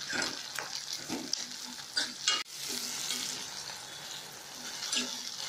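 Sliced onions, green chillies and tomatoes sizzling in hot oil in a metal kadai, with a metal ladle scraping and knocking against the pan now and then as they are stirred.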